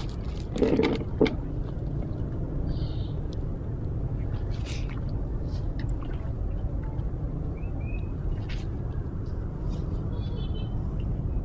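A bamboo fishing pole being swung and recast: a brief swish and splash about half a second in, ending in a sharp click, over a steady low rumble. A few faint high chirps come later.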